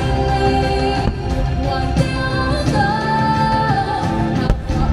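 Song from a fireworks show soundtrack: a singer holds long notes over full instrumental backing.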